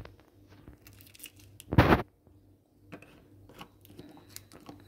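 Soft plastic clicks and knocks from fiddling with a dishwasher's detergent-dispenser lid that won't latch, with one louder, short noise about two seconds in.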